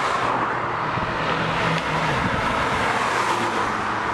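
A modified car driving past at speed and pulling away down the street, its engine and tyre noise running at a fairly even level.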